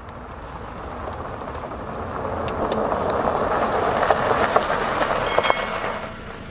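A Subaru Crosstrek Sport drives past on a gravel road, its tyres rumbling and crunching over the loose stones, with small stones ticking and pinging. The rumble builds as the car approaches and drops off near the end.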